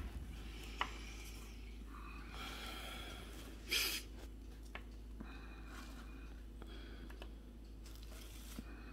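Quiet breathing and handling near the microphone, with a few light clicks as small miniatures are set down on a paper-covered table; about four seconds in, one short sharp sniff, the loudest sound.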